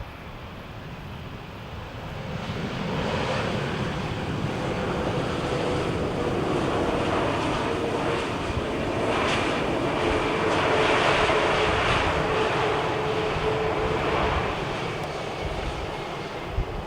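Jet engines of an Airbus A321neo passing close by: a broad roar that swells, peaks about two-thirds of the way through and then eases off, with a steady hum held throughout.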